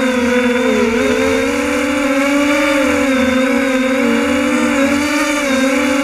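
Multirotor drone's electric motors and propellers buzzing steadily and loudly, the pitch wavering up and down as the motors keep adjusting speed.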